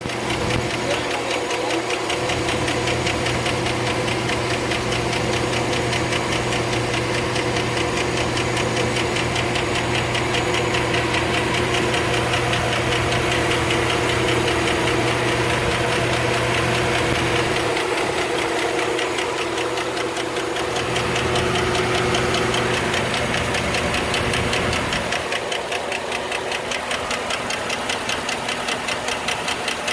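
2008 Chevrolet Suburban's V8 running with a rapid, steady ticking from the valvetrain: lifter tick.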